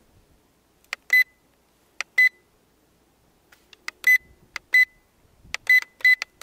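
Short, high electronic beeps from the JJRC H9D's remote control and its FPV monitor as buttons are pressed, each beep led by a small click of the button. Six beeps come at uneven gaps of about half a second to two seconds, from the receiving unit while it has no video link from the quadcopter's camera.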